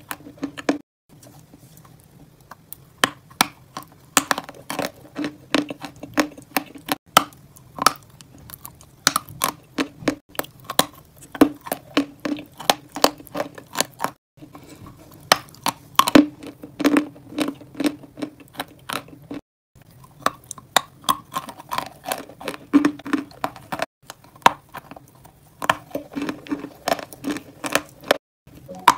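Close-miked chewing and crunching of a crumbly pale dessert block: rapid crisp crunches and wet mouth clicks. The sound is cut off abruptly several times.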